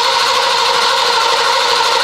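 Foxbody Mustang's V8 being cranked over by the starter motor: a steady whirring that never catches and fires. The engine cranks but won't start, a no-start that the owner traces to a failed fuel pump.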